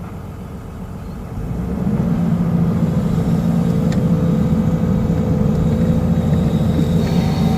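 SDLG excavator's diesel engine running with a low, steady hum. It grows louder about a second and a half in, as if the revs or load come up, and then holds steady.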